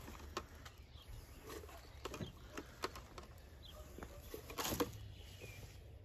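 Faint clicks and knocks of beekeeping gear being handled, with a short rustle a little before the end. Faint bird chirps in the background.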